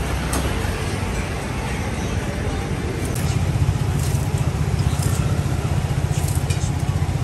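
A hand blade scrapes the rind off a sugar cane stalk in short strokes, about one a second in the second half. Under it runs a steady, pulsing motor rumble that gets louder about three seconds in.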